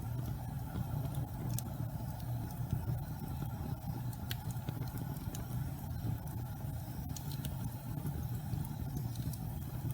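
Wood fire burning in a fireplace: a steady low roar of the flames with occasional sharp crackles.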